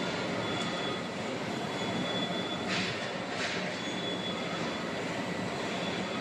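Industrial hydraulic baler press running steadily, its motor and pump giving a constant hum with a thin high tone over it. About three seconds in come two short hissing rushes, less than a second apart.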